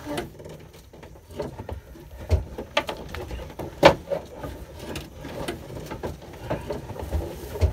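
Irregular knocks, scrapes and rustles as an old boat steering cable is pulled by hand out through the cabin, with a sharper knock about four seconds in.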